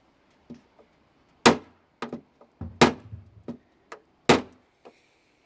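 Hammer taps on the sheet-metal hood of a 2005 Dodge Neon, knocking out a dent. Three hard blows land about a second and a half apart, with lighter knocks in between.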